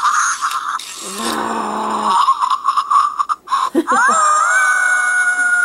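WowWee Grimlings Junkyard toy pup playing recorded dog sounds through its small speaker: a run of short yaps and grumbles, then about four seconds in a rising howl that holds on one long note.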